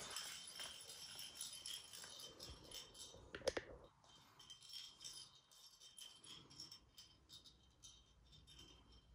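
Small plastic ball rolling around the plastic track of a Catit Senses 2.0 play circuit after a cat bats it: a faint run of light clicks and rattles, with one sharper knock about three and a half seconds in.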